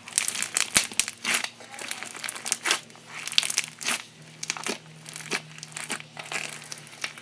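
Floam slime being squeezed and worked by hand, its foam beads crackling and popping in quick irregular bursts.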